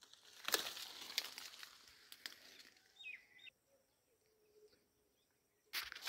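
Mango tree leaves and twigs rustling and snapping as fruit is pulled from a branch by hand, with a short bird chirp about three seconds in; it then goes nearly silent for about two seconds before handling noise returns near the end.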